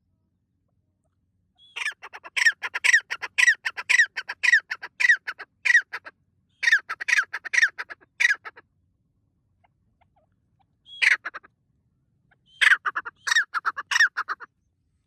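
Grey francolin (white partridge) calling: loud, harsh notes repeated two or three a second in a long run of several seconds, a short burst about eleven seconds in, and another run near the end.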